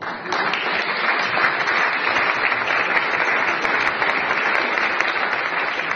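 Audience applauding, breaking out suddenly and then holding steady as a dense patter of many hands clapping.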